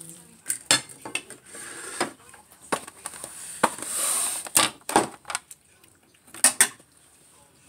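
Cutlery and dishes clinking at a dinner table: a dozen or so sharp clicks and knocks, with a short scrape about four seconds in as a fork works on a serving platter.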